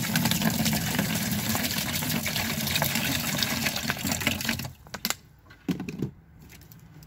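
Water pouring from two upturned plastic water bottles at once and splashing into a plastic bucket, a steady rush that stops about four and a half seconds in. A few brief knocks follow near the end.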